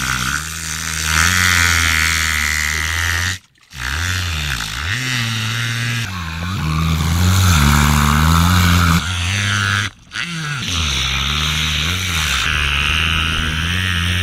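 Killer whale at the surface making a low, engine-like drone, imitating the sound of a boat's motor; the pitch dips and rises here and there. The drone breaks off briefly twice, about three and a half seconds in and again around ten seconds.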